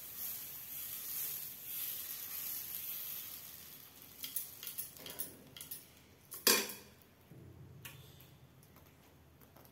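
Thick dosa batter sizzling on a hot pan while a steel ladle spreads it in circles. From about four seconds in the ladle clicks and knocks against the pan, with one loud knock about six and a half seconds in.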